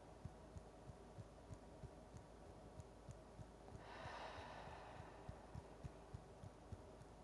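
Faint, soft thuds of fingertips tapping on the upper chest just below the collarbones, about three or four a second, with one long exhale about four seconds in.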